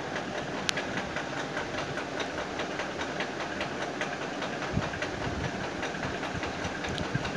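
Wire whisk beating thick gram-flour batter in a plastic bowl: a steady hiss with many quick small ticks.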